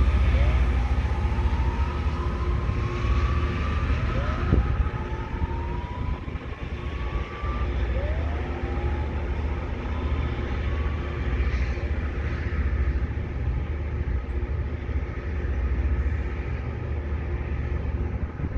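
Loram rail grinder train running with a deep diesel rumble and a steady whine. A rising whine climbs over a few seconds four times, about every three to four seconds early on, and there is a single knock near the middle.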